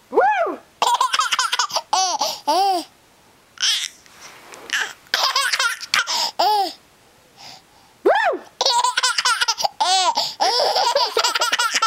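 Infant laughing hard in repeated bursts of high-pitched squealing laughs, with short pauses between them.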